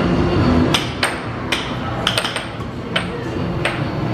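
Air hockey puck and mallets clacking: about seven sharp plastic hits in four seconds as the puck is struck back and forth across the table, over steady background noise.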